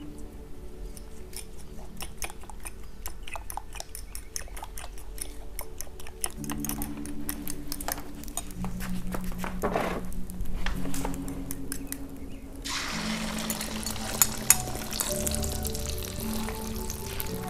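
A fork clicks repeatedly against a glass bowl as eggs are beaten. About two-thirds of the way in, beaten egg poured into hot oil in a wok suddenly starts sizzling and keeps sizzling, with one sharp clink partway through. Background music plays throughout.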